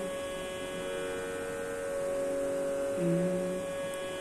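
A steady pitch drone of several held tones, the reference pitch for Carnatic singing, with a brief low held tone joining it about three seconds in.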